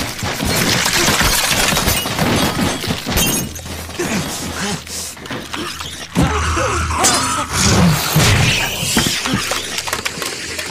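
Film action sound effects: loud crashing with glass shattering, then cries that rise and fall in pitch over a steady low hum.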